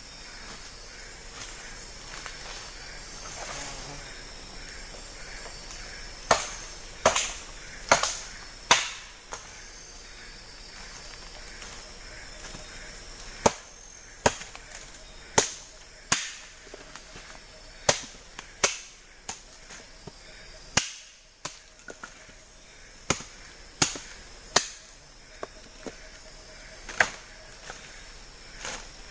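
Forest ambience of steady insect drone over a high hiss, broken by about a dozen sharp knocks or snaps at uneven intervals, most of them in the second half.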